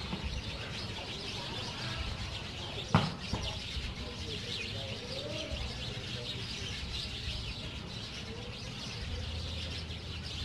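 Small birds chirping continuously, with one sharp thump about three seconds in.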